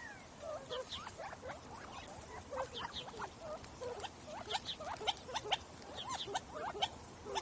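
A feeding flock of small desert birds chirping and calling. Many short calls overlap without a break, some swooping up and some swooping down in pitch.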